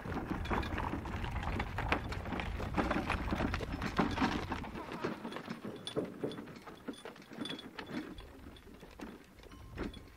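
Irregular clattering and rattling from a small utility vehicle hauling buckets over rough ground, busiest in the first half and thinning out as it moves away, over a low rumble.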